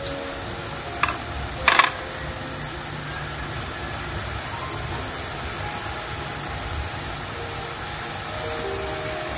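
Pork belly pieces cooking in a pan of thin shrimp-paste sauce, a steady sizzling as the liquid bubbles, with two brief clicks about a second and two seconds in.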